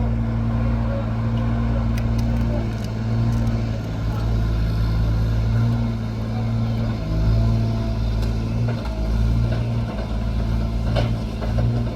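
A heavy machine's engine running steadily: a low hum that swells and eases slightly, with a few faint clicks over it.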